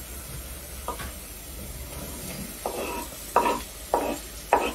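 A metal spoon stirs grated carrot and onion frying in a metal pot. From a little under three seconds in, it scrapes and clinks against the pot about twice a second, each stroke with a short ringing note, over a faint sizzle.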